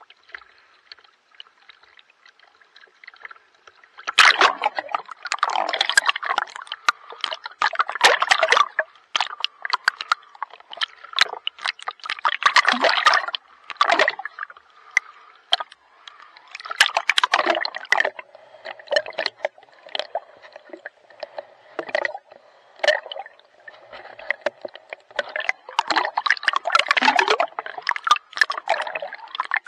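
Water splashing and sloshing close to the microphone as someone swims, in repeated uneven bursts that start about four seconds in after a quieter stretch.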